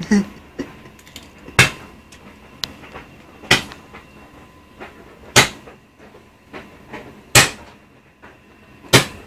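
Fireworks going off: five sharp bangs, one about every two seconds, as from a firework cake firing its shots in turn.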